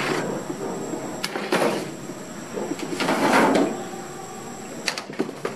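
Metal baking trays being slid out of and back into a deck oven's metal racks: a few scraping slides, with sharp metal clicks and knocks about a second in and near the end.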